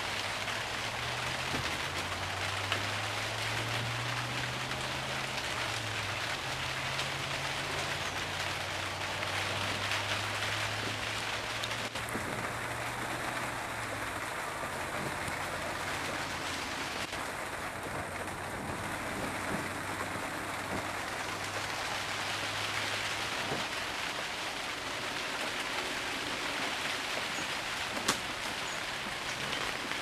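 Steady rain pattering on the plastic sheeting of a greenhouse roof, heard from underneath inside the greenhouse. A faint low drone sits beneath it for the first two-thirds.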